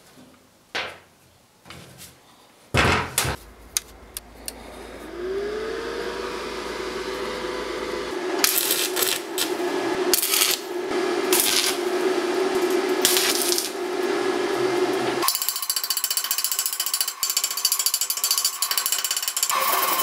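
A few clicks and a loud knock, then an electric power tool spins up with a rising whine and settles into a steady hum. It bites into the work with loud, harsh rasping in stretches. About fifteen seconds in, the sound switches abruptly to a dense, harsh grinding that runs on.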